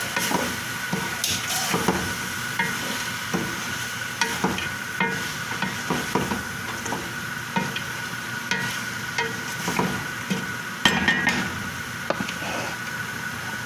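A spoon stirring chicken and tomatoes in a frying pan: irregular scrapes and knocks against the pan, the loudest cluster about eleven seconds in, with frying sizzle underneath.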